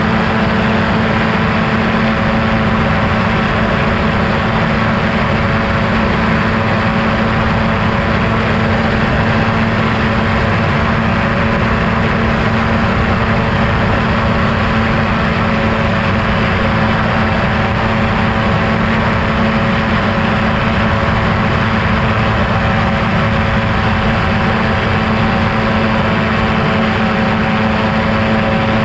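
Quicksilver MXL-2 airplane's engine and propeller running steadily in flight: a loud, constant drone with a strong steady note and a broad rush of noise over it.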